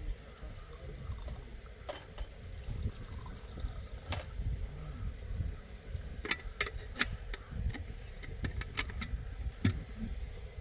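Sharp knocks and clicks, a few scattered early on and a quick cluster in the second half, over a steady low rumble.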